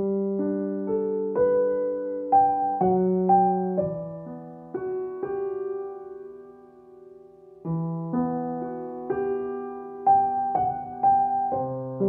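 Calm, slow solo piano music: single notes and chords struck every second or so, each left to ring and fade, with one chord held and dying away for about three seconds in the middle before the playing picks up again.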